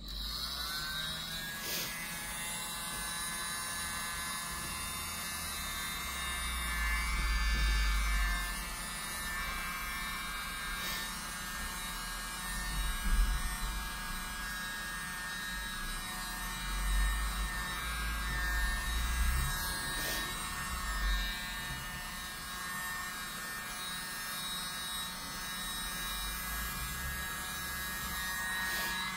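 Miniature corded electric blower, sold as the world's smallest leaf blower, spinning up at the start and then running with a steady high motor whine. Low rushes of air come and go as it blows across the wet acrylic paint.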